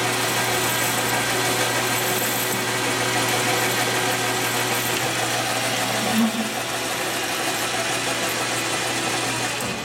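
Machine tool running steadily while a boring bar cuts a hole in a steel part, a continuous hiss over a low motor hum. The sound drops away right at the end as the cut finishes.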